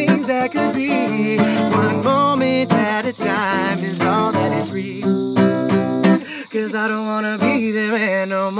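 Acoustic guitar strummed steadily while a man sings a wavering melody over it.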